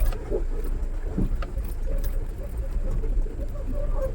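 Mahindra Bolero Pickup's diesel engine running as the pickup drives over a rough dirt track, with a steady low rumble and scattered knocks and rattles from the body as it jolts over the ground.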